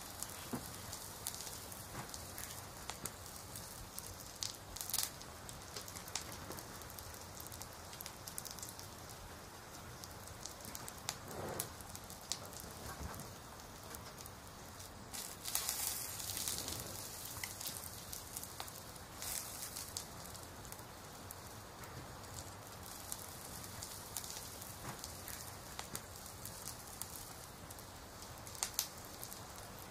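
Crackling fire ambience: a steady soft hiss with scattered small pops and crackles, growing louder for a couple of seconds about halfway through.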